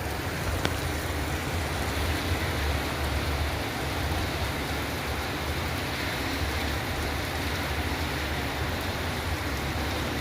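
Very heavy rain pouring down in a steady, even hiss.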